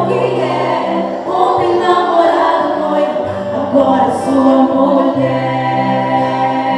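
Choir singing in harmony, with long held low notes beneath the voices.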